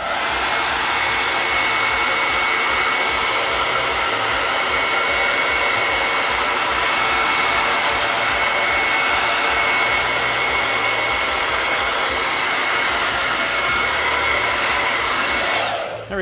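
Handheld blow dryer drying freshly applied paint on a wooden sign. It switches on, runs at a steady rushing blow with a thin high whine, and cuts off near the end.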